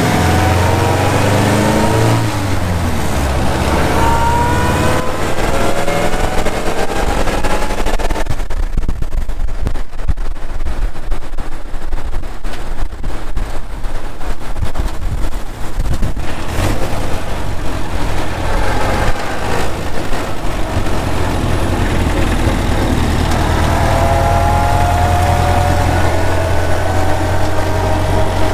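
A 1928 Ford Model A's four-cylinder flathead engine accelerating on the road, now running on a larger carburetor jet fitted to cure poor running at high rpm. Its revs climb and drop back several times in the first few seconds as it pulls through the gears. Through the middle the engine note is buried in wind and road noise, and near the end it climbs again through the gears.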